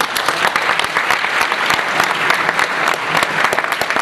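Audience applauding: many people clapping steadily at full strength.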